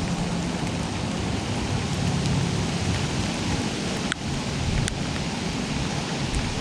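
Steady rainfall, with a few single drops tapping sharply about four and five seconds in, over a low rumble.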